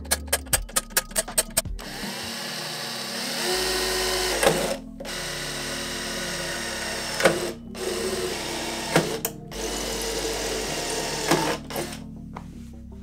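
Cordless drill whirring in four runs of about one to three seconds each, driving screws through a steel tube frame into wooden beams. It opens with a quick series of sharp clicks, and background music runs underneath.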